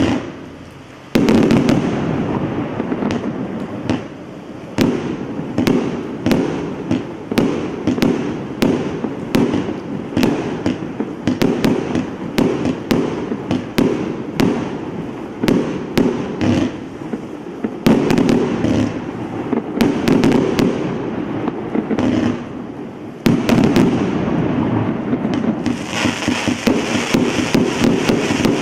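Hallmark Relentless 228-shot compound firework cake firing: a rapid, near-continuous string of shots and bursts, with short lulls about four seconds in and again a few seconds before the end. Near the end a brighter hiss joins the shots.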